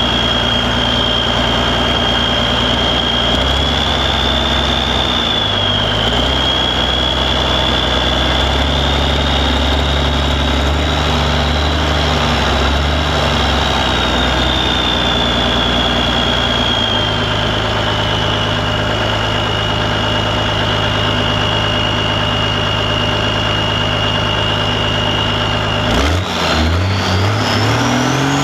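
International Harvester 5088 pulling tractor's diesel engine idling loud and steady at the start line, with a high whine above it that wavers slightly in pitch. About 26 seconds in there is a sharp clunk and the engine starts revving up, its pitch climbing fast as the pull begins.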